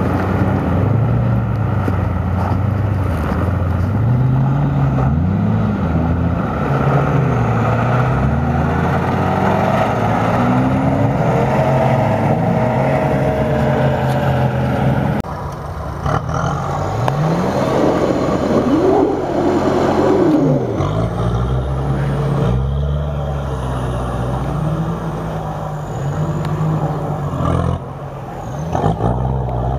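Off-road racing 4x4 engines revving hard, the engine note rising and falling again and again under load. The sound changes abruptly about halfway through.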